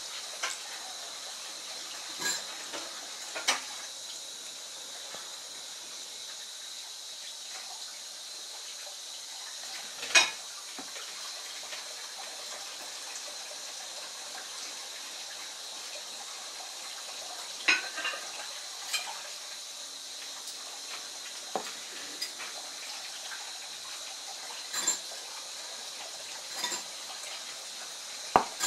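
Light clicks and knocks of a Shimano Hollowtech II BB-52/51 bottom bracket's metal cups and plastic sleeve being handled and pulled apart, scattered every few seconds with the loudest about ten seconds in, over a steady faint hiss with a thin high tone.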